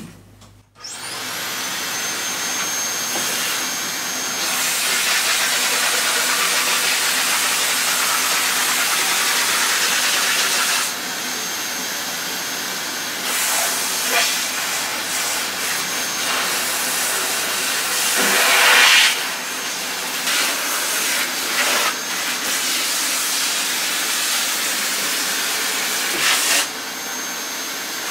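Vacuum cleaner switched on about a second in, its motor whine rising and settling to a steady pitch. It then runs with a rushing suction noise that rises and falls as the hose and brush nozzle are worked over a grand piano keyframe, sucking up decades of dust. The suction is loudest near two-thirds of the way through.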